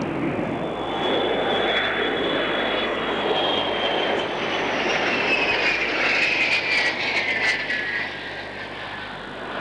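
Beriev A-40 Albatros jet amphibian's engines in a low flypast: a loud rushing roar with a high whine that slides steadily down in pitch as the aircraft goes by, easing off a little near the end.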